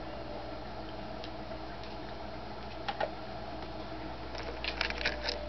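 Small dogs' claws clicking and tapping on a hardwood floor as they play: a couple of taps about three seconds in, then a quick flurry of clicks near the end, over a steady low room hum.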